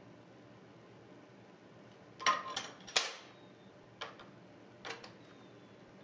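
Metal cutlery clinking in a drawer as a crow picks through the forks and spoons with its beak: about five sharp clinks starting about two seconds in, the loudest about a second later.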